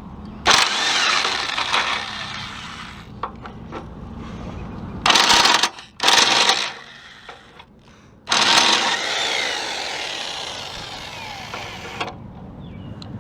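Power impact wrench running in bursts, backing out exhaust bolts: one run of about two seconds, two short bursts about five and six seconds in, then a longer run of nearly four seconds.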